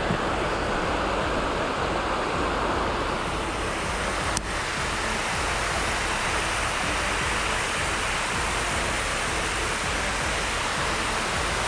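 Steady rush of a mountain stream's flowing water, the warm spring-fed stream of a hot-spring waterfall. A single short click about four seconds in.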